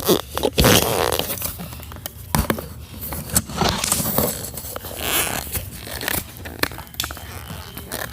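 Watery slime being squished and worked by hand: irregular squelches, with scattered clicks and rustles.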